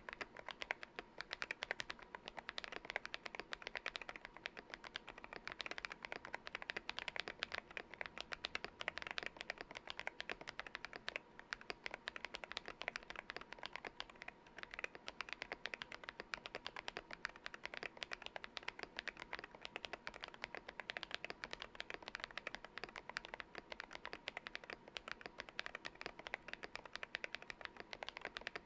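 Continuous fast typing on a GMK67 mechanical keyboard with lubed Akko Lavender Purple Pro linear switches and PBT Cherry-profile keycaps: a dense run of soft, muted keystroke clacks, damped by foam and tape mods.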